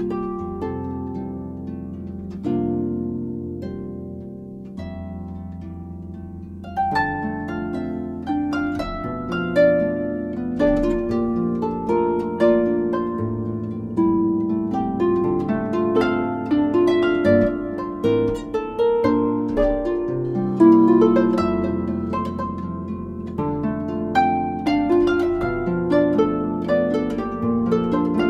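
Background music: jazz harp playing plucked notes, sparse and quieter at first, then fuller and busier from about a quarter of the way in.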